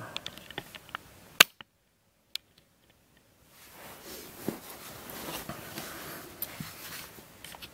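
Handling noise. A sharp knock comes about a second and a half in, then a couple of seconds of near silence, then soft rustling with light clicks as a hand takes hold of a plastic twisty puzzle on a carpet.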